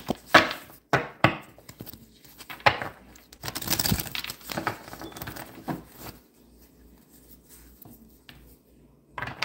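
A tarot deck being shuffled by hand: quick flicks and slaps of the cards, then a rustling stretch, going quieter about six seconds in.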